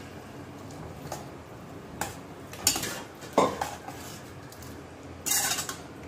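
Metal clinks and scraping of a pressure cooker and a steel spoon against a steel kadai as boiled chickpeas are tipped into thick gravy and stirred. Several sharp clinks, the loudest about three and a half seconds in.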